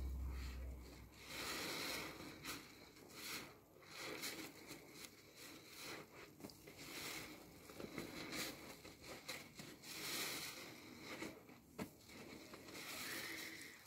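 A new foam car sponge squeezed and wrung by hand in thick soapy lather: repeated wet squelches and crackling of foam, coming in uneven swells every second or so.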